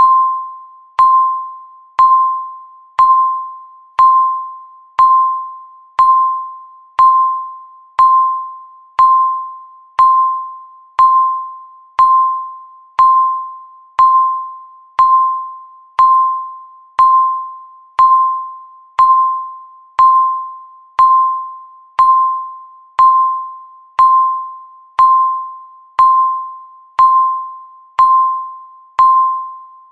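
Countdown timer beeping once every second: the same single high tone each time, starting sharply and fading away before the next beep, about thirty beeps in a row.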